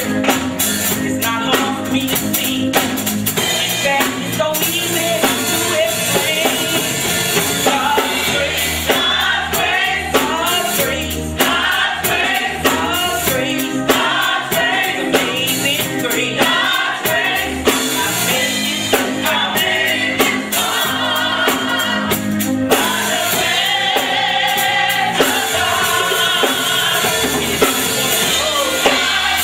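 A woman singing a gospel song into a handheld microphone, backed by a band with a steady drum beat.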